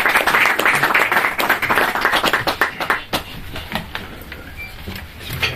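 Audience applauding: many hands clapping densely, thinning out after about three seconds to a few scattered claps.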